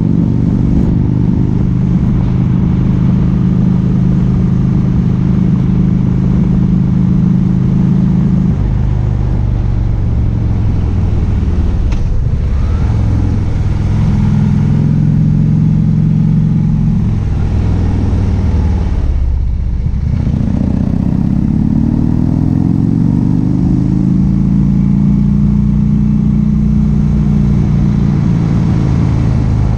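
Harley-Davidson touring motorcycle's V-twin engine pulling along a winding road, with wind rushing over the microphone. The engine note holds steady, drops away twice as the rider backs off for bends, and climbs again in rising sweeps on the throttle about two-thirds of the way through.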